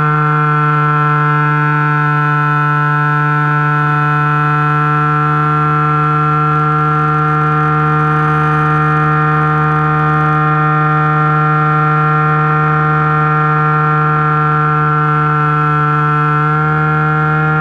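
Turnigy G10 brushless electric motor driving a 10x6 propeller in flight, heard close up from aboard the plane as a loud, steady whine that rises slightly in pitch near the end.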